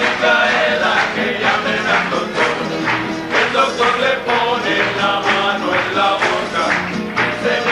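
Canarian folk song: several voices singing together over a steady, rhythmic instrumental accompaniment.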